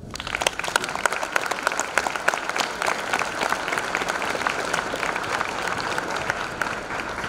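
Crowd applauding, many people clapping at once, starting suddenly and dying down near the end.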